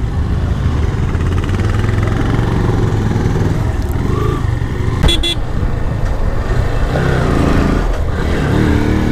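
Motorcycle engine running at low road speed beneath the rider, its pitch climbing near the end as it accelerates. A brief sharp click about five seconds in.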